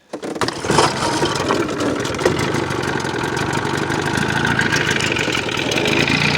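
1980 Johnson 25 hp two-stroke outboard motor being pull-started, catching within the first second and then running steadily at idle.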